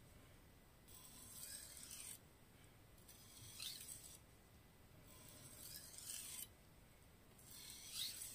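An Aogami Super steel petty knife's edge being ground on an Imanishi Arashiyama #1000 whetstone: four faint scraping strokes, each about a second long, coming about every two seconds.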